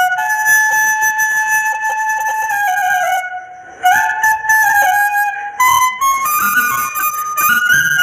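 Bansuri (Indian bamboo flute) playing a slow melody of held notes with slides between them, breaking off briefly a little before halfway.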